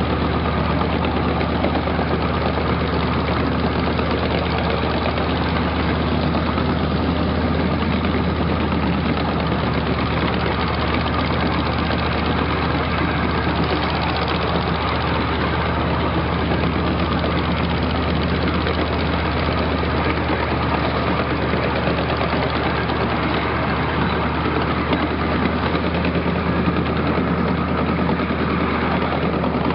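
A 12-inch-gauge riding train on the move: a steady engine drone over the rumble of the cars' wheels on the track.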